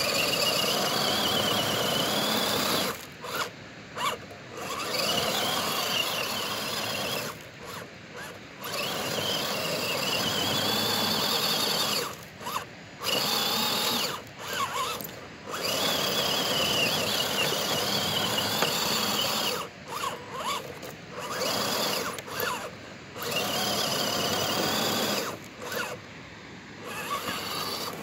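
Radio-controlled scale rock crawler's electric motor and geartrain whining as it crawls up a steep loose slope, the pitch wavering up and down with load. It runs in long spurts of throttle broken by short pauses, about six times.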